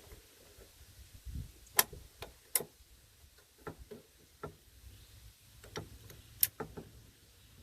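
Scattered sharp metal clicks and clacks of gun handling, three of them louder, with a dull thud between.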